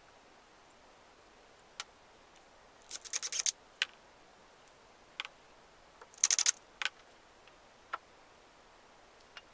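Sharp clicks and short rattles of small hard objects being handled, with two brief clusters of rapid clicks about 3 and 6 seconds in and single clicks scattered between.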